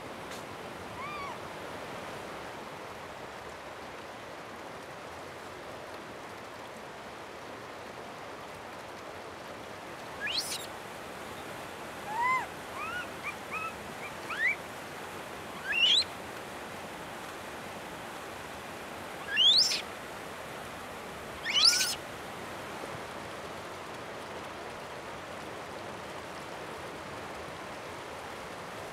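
Steady rush of flowing hot-spring water, with a scattering of short, rising, high calls from Japanese macaques (snow monkeys) in the middle of the stretch; the last two calls are the loudest.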